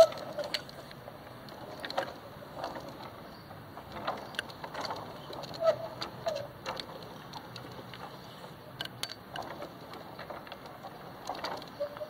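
Hand-cranked homemade concrete mixer's chain-and-sprocket drive giving irregular clicks and knocks, with a few short squeaks.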